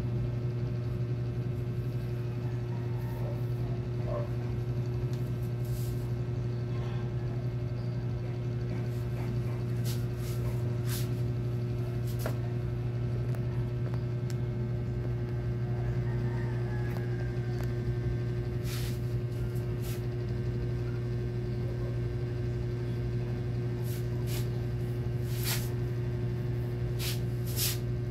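Hair dryer running steadily as the air blower of a homemade waste-oil burner stove, blowing through a steel pipe into the burning oil: a constant hum, with a few short sharp ticks in the second half.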